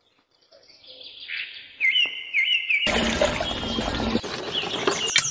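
Birds chirping in short repeated calls. About three seconds in, a much louder, dense noise starts and the chirps carry on through it, with a sharp click near the end.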